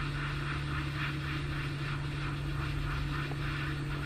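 Hot air gun blowing, a steady whir with a strong low hum and a faint regular flutter.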